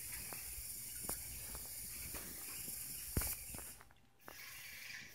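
Faint steady hiss with a few light clicks and one louder knock a little after three seconds in.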